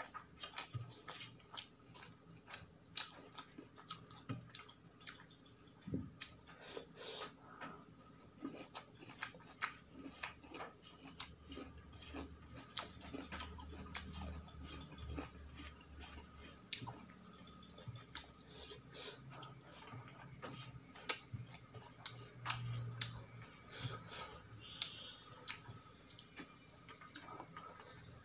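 A person chewing a meal close to the microphone, with irregular wet clicks and smacks of the mouth several times a second.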